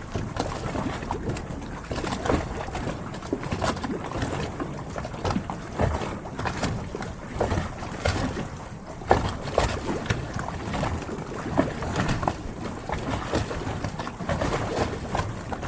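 Harbour water lapping and splashing against moored yachts' hulls, a constant wash broken by irregular hollow slaps and knocks.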